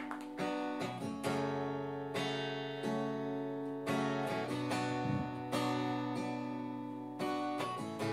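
Acoustic guitars strumming chords together, the instrumental intro of a song before the singing comes in.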